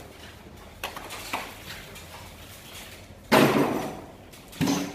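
A couple of light clicks, then a loud clatter about three seconds in and a shorter knock near the end, from hands-on work at an electrical panel board.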